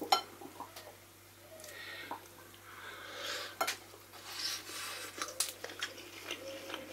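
Soft tearing and crackling as a roast chicken wing is pulled off the bird, with scattered light clicks and clinks of cutlery against a china plate.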